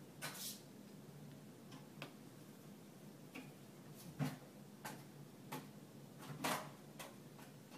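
A cat pawing at a door's mail slot flap, which gives irregular faint clicks and clacks, with louder knocks about four seconds and six and a half seconds in. A brief rustle of paper comes at the start.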